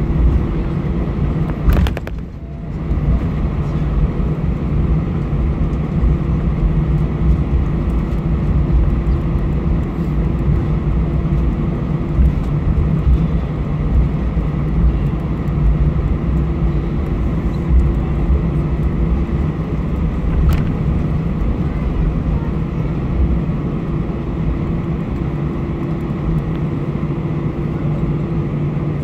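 Cabin noise of an Airbus A320-214 taxiing, heard from a window seat beside the wing: the CFM56 engines at taxi power give a steady hum over a low rumble. There is a brief knock about two seconds in and a faint click about twenty seconds in.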